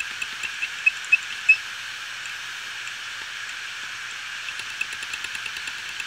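Seagate Barracuda 7200.11 hard drive running with its cover off: the spinning platter gives a steady whir and hiss while the head arm sweeps back and forth, ticking about five times a second, with three sharper clicks in the first second and a half. The ticking pauses for a couple of seconds in the middle and resumes near the end. The heads keep seeking on a drive already dead from the SD15 firmware fault.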